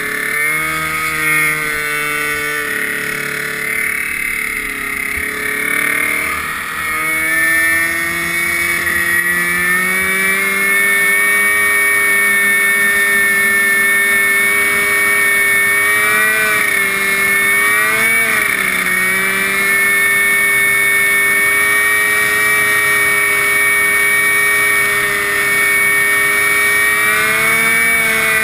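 Small engine of a converted riding lawn tractor with a tall straight exhaust stack, running under load. It labours at lower, uneven revs for the first several seconds, then climbs to a steady high speed, dipping briefly twice around the middle and once near the end.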